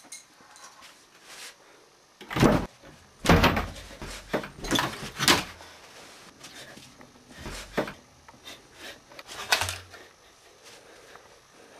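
A run of loud knocks and bangs from a wooden cupboard door and things being handled. The loudest come about two and a half and three and a half seconds in, more follow through the middle, and a last one comes near the end.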